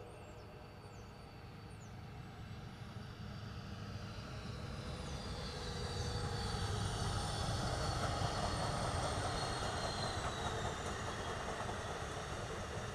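Amtrak passenger train led by a Siemens Charger diesel locomotive passing by close: a rumble of engine and wheels on rail that grows louder over the first six seconds, then holds. Thin high tones slide slowly lower through the second half.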